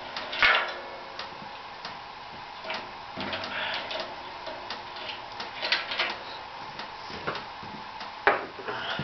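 Scattered clicks and knocks as the knobs holding the dust-collector hood on a Woodmaster planer molder are turned loose and the hood is handled. The sharpest knock comes about half a second in, with more near six and eight seconds.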